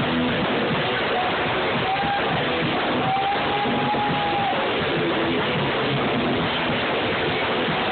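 Band playing a song, guitar in the mix, heard as a dense, steady wash through a phone's microphone. A long held note stands out above it about three seconds in.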